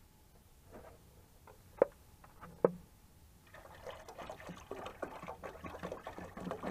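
Water poured from a plastic jug into a stainless steel pot of broth, a continuous splashing trickle that starts about halfway through. It is preceded by a few sharp clicks, two of them loud, as things are handled.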